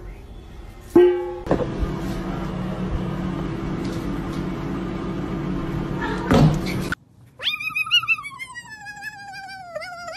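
A cat's long drawn-out yowl in the second half, starting high and sliding slowly down in pitch with a wavering tone. Before it there is a steady noisy hum, with a sharp loud sound about a second in and another near the middle-to-late part.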